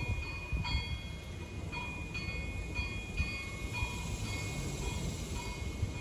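Metal wind chimes ringing in the breeze, struck irregularly about once or twice a second, with several held tones overlapping, over a low gusting wind rumble.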